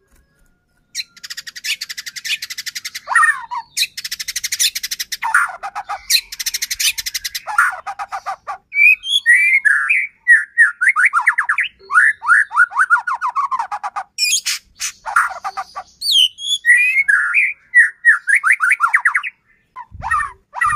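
White-rumped shama (murai batu) in full song: rapid crackling rattles through the first half, then runs of quick falling whistled notes.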